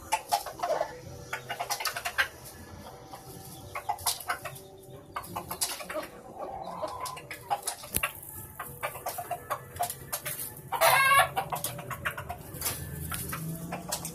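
Chickens clucking in short calls amid handling clicks and rustles, with one loud, brief rooster call about eleven seconds in.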